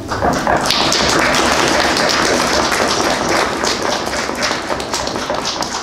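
An audience applauding, the clapping thinning out near the end.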